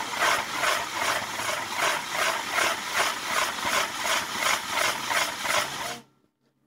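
Burning castillo firework tower: a dense, rhythmic hissing spray that pulses about three times a second, typical of a spinning firework wheel. It cuts off suddenly about six seconds in.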